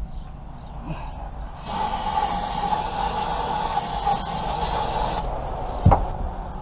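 Aerosol starting fluid sprayed into the open carburetor throat of a marine engine, one steady hiss of about three and a half seconds starting near the two-second mark, priming the engine so it will fire when cranked. A single sharp thump follows near the end.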